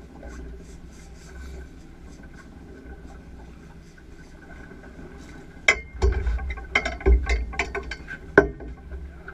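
Low wind rumble on a boat-mounted camera's microphone, then, a little past halfway, a run of sharp, irregular knocks and thuds in the cockpit of a fishing boat as the crew work the catch, with the loudest knock near the end.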